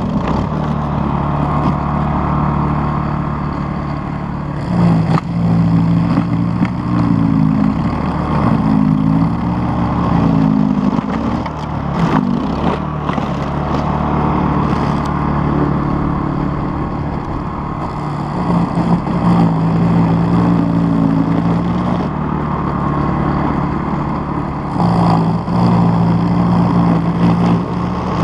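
Toro 518 ZR Power Clear snow blower's small four-stroke engine running hard while cutting through deep, heavy snow, its pitch dipping and recovering again and again as the load changes.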